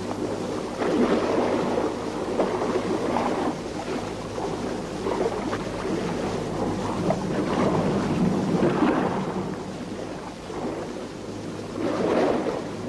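Sea water splashing and washing in repeated surges every second or two, with a low steady hum underneath.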